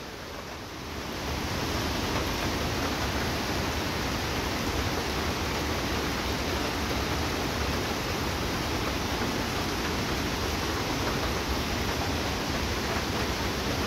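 Mountain stream (nala) swollen by heavy rain, rushing steadily. The sound grows louder about a second in, then holds.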